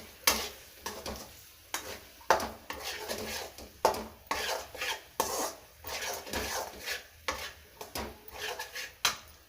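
A spoon stirring and scraping a ginger-and-turmeric paste as it sizzles in oil in a cooking pan. The strokes come irregularly, about one or two a second, with a few sharp knocks of the spoon against the pan.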